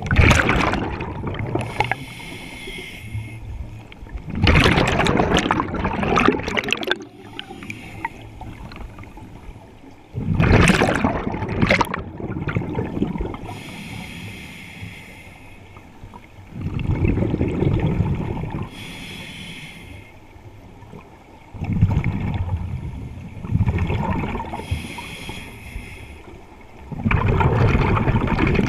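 Scuba diver breathing through a regulator underwater: a quieter hissing inhale, then a loud rush of exhaled bubbles, about every five to six seconds.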